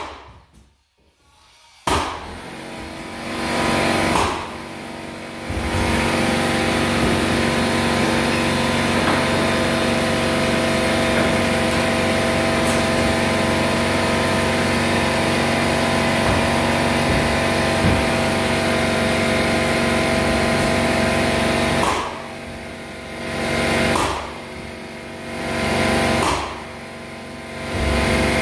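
Air compressor running, a steady motor hum with several tones. It starts about two seconds in, then near the end drops away and picks up again three times.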